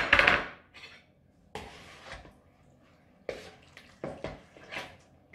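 A sharp clink of kitchenware at the very start, then intermittent wet squelching and scraping as chopped raw chicken is stirred with yogurt and tikka curry paste in a glass mixing bowl.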